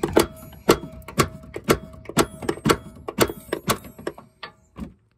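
Hammer tapping on the lower U-joint yoke of a steering intermediate shaft to drive it off the steering gear input shaft after its clamping bolt is out. The taps are sharp and come about three a second, stopping just before the end.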